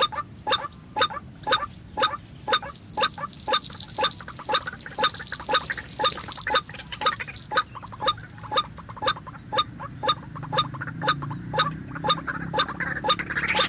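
White-breasted waterhen (ruak-ruak) calling: harsh, croaking "kruak" notes repeated steadily, about two a second, as used to lure the birds to a trap.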